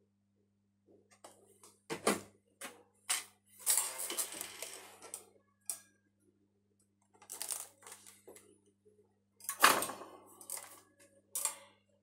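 Handling noise on a repair workbench: a series of clicks, knocks and rustles as tools and a white LED magnifier lamp on a jointed arm are moved about, with two sharper knocks, one about two seconds in and a louder one near the end. A steady low electrical hum runs underneath.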